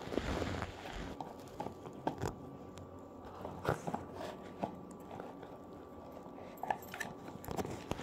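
Puppy chewing a cardboard tube: irregular crunches and clicks of teeth on cardboard, busiest in the first second.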